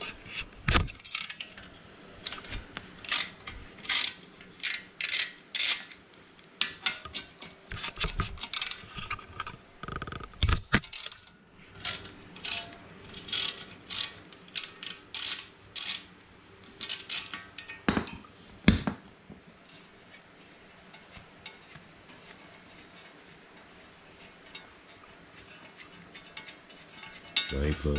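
Hand ratchet wrench clicking in quick runs as the skid-plate bolts under a pit bike's engine are worked loose, with odd clinks of metal. The clicking dies away in the last third, leaving only faint handling noise.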